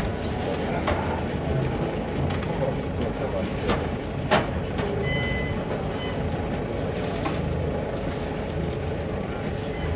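Steady low rumble of a sailing yacht under way at sea, with a few sharp knocks and two short high beeps about halfway through.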